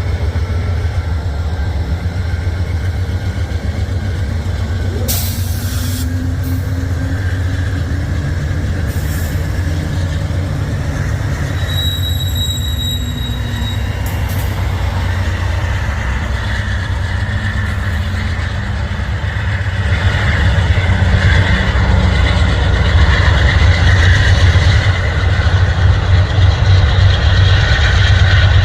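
Diesel locomotive running with a heavy, steady low rumble that grows louder about twenty seconds in, as of a train drawing nearer or working harder. A short high beep sounds about halfway through.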